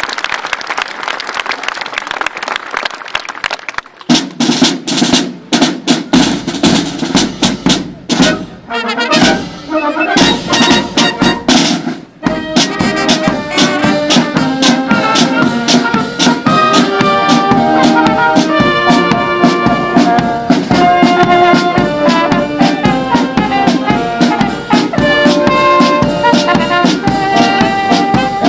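Applause and crowd noise for about four seconds, then a brass band starts up: drum strokes and brass notes come in, and from about twelve seconds in the trumpets, trombones and horns play steadily over the bass drum.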